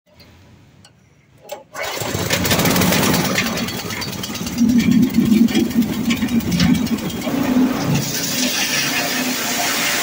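Small petrol engine driving a corn cracker machine is started: after a short pull about a second and a half in it catches and then runs steadily, loud, with the cracker's mechanism turning over.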